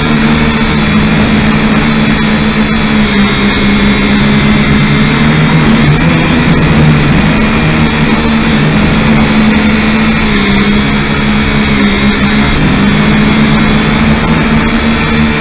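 Kyosho Quatrox Eye mini quadcopter's electric motors and propellers buzzing steadily in flight, heard close up from the drone itself. The pitch wavers slightly a few times as the drone adjusts its motors.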